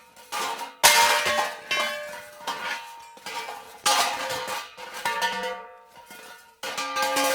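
Metal pipe dropped onto a hard floor: a series of clangs that bounce and ring on, the loudest about a second in, with fresh clangs near the middle and near the end.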